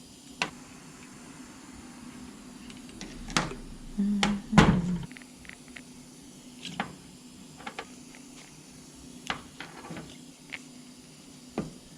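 Scattered metal clicks and knocks from parts and hand tools being handled while fitting the front timing components of an LS1 V8. A louder cluster of clunks comes about three and a half to five seconds in.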